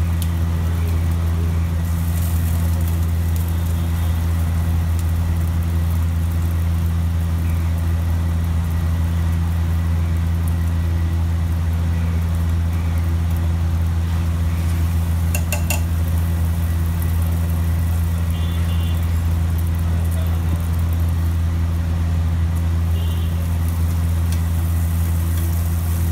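Steady, loud low mechanical hum, like a motor or engine running, with a few short clicks around the middle.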